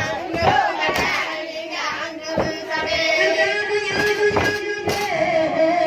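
Voices chanting an Acehnese syair (chanted poem) in a wavering, ornamented melody that settles into long held notes about halfway through, with sharp percussive strikes at irregular intervals.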